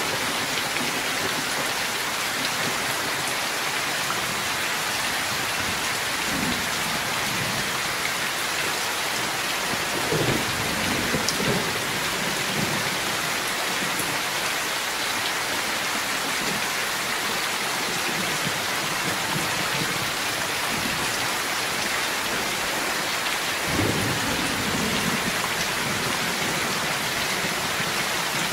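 Heavy rain falling hard and steadily, with low rolls of thunder a few times: about a quarter of the way in, twice around the middle, and again near the end.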